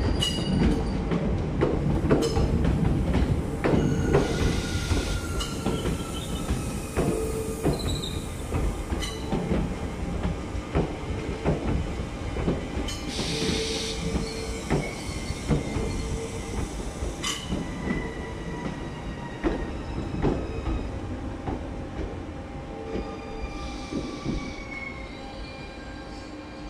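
Regional passenger train rolling slowly past a station platform: wheels clicking over rail joints and points, with repeated high squeals from the wheels. The sound fades over the last several seconds as the train moves off.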